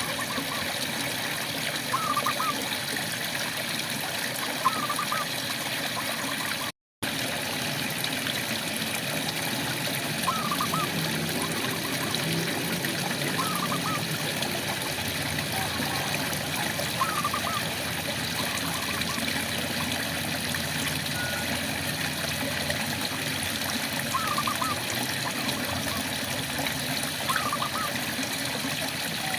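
Steady rain falling, with a frog giving short rising calls every few seconds. The sound cuts out completely for a fraction of a second about seven seconds in.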